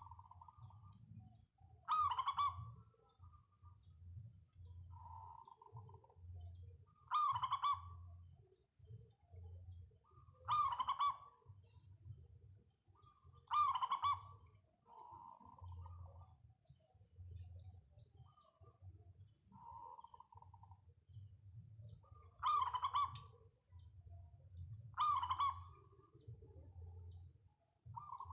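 Zebra doves (perkutut) cooing: short, loud coos around every two to four seconds, with fainter, plainer calls in between.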